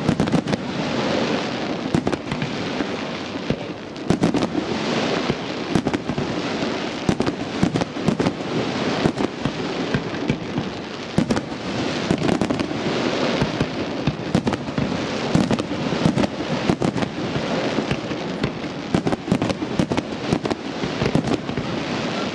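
Fireworks display in full swing: a dense, continuous run of bangs and crackling shells with no let-up.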